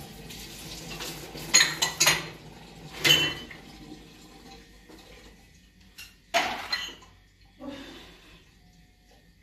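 Dishes and utensils clattering: about half a dozen sharp clinks and knocks, some ringing briefly, bunched together in the first few seconds and then two more spaced out.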